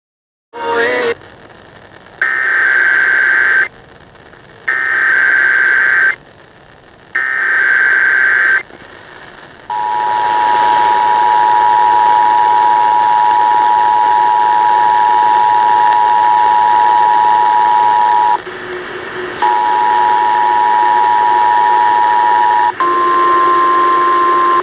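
Emergency Alert System tones: short data bursts, then three screeching SAME header bursts about a second and a half each. Then the two-tone attention signal holds steady for about eight seconds, stops briefly, sounds again for about three seconds, and gives way to a single steady tone near the end.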